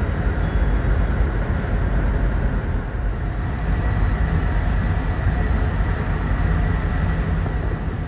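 Passenger ship KM Lawit under way at sea: a steady rumbling noise of the ship and rushing air, with wind buffeting the microphone.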